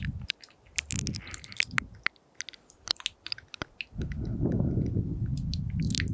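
Close-up mouth sounds into a binaural microphone: a string of small, sharp, wet clicks and smacks of the tongue and lips. From about four seconds in they give way to a low, muffled rumble.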